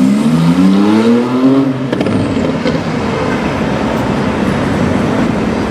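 Twin-turbo flat-six of a tuned Porsche 991 Turbo S accelerating hard, its pitch rising for about two seconds, then a sharp crack and a steady rush of exhaust and road noise as it goes on.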